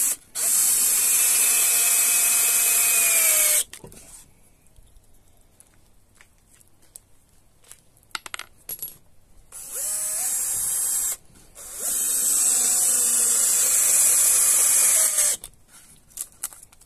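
Power drill-driver driving 30 mm screws through one OSB disc into another: three runs of the motor, the first and last about three seconds each and a shorter one between, with small clicks of handling in the pauses.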